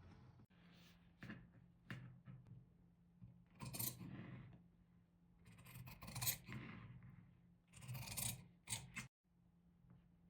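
Scissors cutting through cotton twill fabric in a series of rasping snips, several about a second long, with a few short snips near the end.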